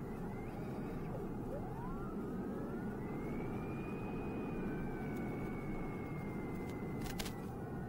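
Electric motor and propeller of an FPV flying wing in flight, heard through the onboard microphone: a steady rushing of wind and prop noise, with a thin motor whine that rises in pitch and then slowly falls as the throttle changes. A short crackle comes near the end.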